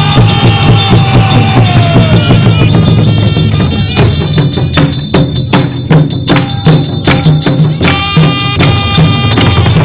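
Music with a steady drum beat under a melody line. From about four seconds in, sharp percussion strikes come about three times a second for some four seconds, then the melody returns.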